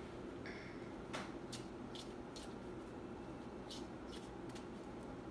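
Oracle cards being handled and drawn from a deck: about half a dozen light clicks and taps scattered through, with a brief faint squeak about half a second in, over a faint steady hum.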